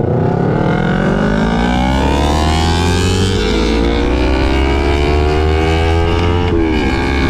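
250 cc parallel-twin motorcycle engine accelerating hard, its pitch climbing steadily through one gear for about six seconds, then dropping sharply at an upshift near the end and starting to climb again.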